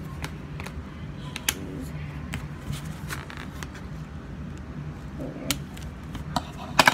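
Scissors snipping and hands handling a small plastic toy: scattered short clicks and rustles over a steady low hum, with a quick cluster of louder clicks near the end.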